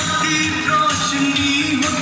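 A recorded song playing: a singer's voice holding and bending a melody over instrumental backing.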